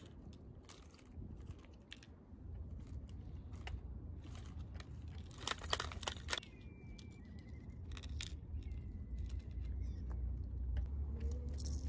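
Irregular clicks and rustling from handling a plastic fishing-tackle case as it is opened and a rig is lifted out, over a low steady rumble that grows toward the end.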